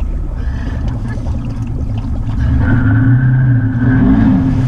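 Off-road vehicle engine running in deep mud and water, revving up about halfway through and holding there, then dropping back near the end.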